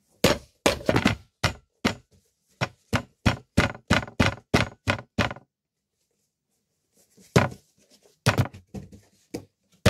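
A quick series of sharp knocks and taps, about fifteen of them in the first five seconds, then a pause of a second or two and a few more knocks near the end.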